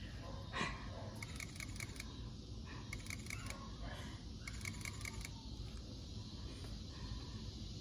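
A camera shutter firing in three quick bursts of four or five clicks each, about five clicks a second, over a steady low outdoor background. A brief, louder sound comes just after the start.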